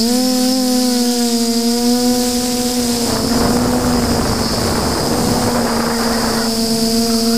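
Micro FPV quadcopter's electric motors and propellers whining steadily, heard through the onboard camera's microphone, the pitch wavering slightly with throttle. About three seconds in a rushing noise rises over the whine and falls away again about three and a half seconds later.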